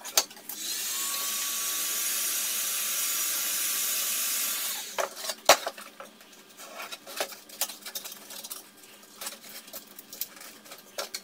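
Hand-held heat gun running with a steady rushing hiss for about four seconds, warming a sheet-metal part to soften the coating and glue on it, then switched off. After that come scattered clicks, scrapes and knocks as the metal part is worked at the bench, with one sharp knock about halfway through.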